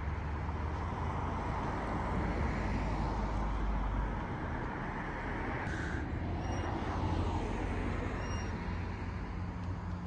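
Steady outdoor background of road traffic, an even rushing noise with gentle swells.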